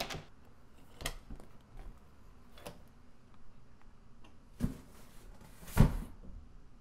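A door shuts with a click, followed by scattered knocks and handling sounds as a door is pushed open and a cardboard box is carried in. The loudest is a thump about six seconds in, as the box is set down.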